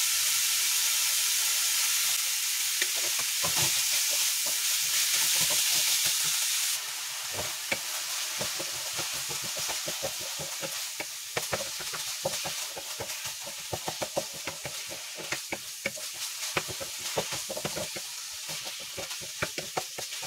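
Minced beef sizzling in a non-stick frying pan over a gas flame as it browns. From about seven seconds in the hiss is quieter, and a wooden spatula makes frequent scraping and tapping sounds against the pan as it stirs and breaks up the meat.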